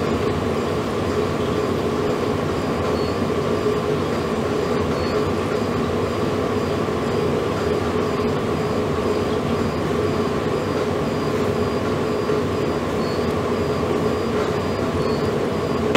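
Steady machine hum over a constant rushing noise, with two held tones, one low and one higher, that do not change.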